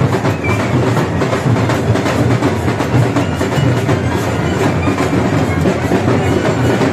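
Dhol drums beating fast and loud in a dense, continuous rhythm.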